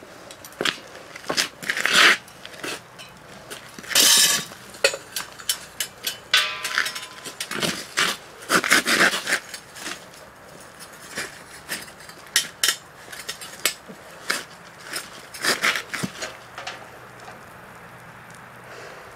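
Irregular metallic clinks, knocks and scrapes of foundry tools around a crucible and sand mold, the loudest about 2 and 4 seconds in. Near the end a steady hiss sets in as molten cast iron is poured into the sand mold.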